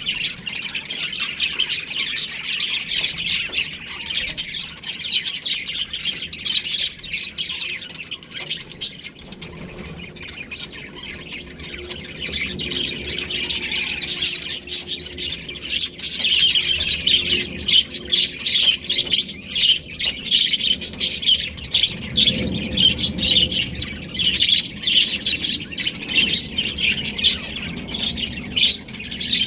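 A flock of budgerigars chirping and chattering together: a dense, continuous twitter of rapid high chirps and squawks that thins out for a few seconds about a third of the way in.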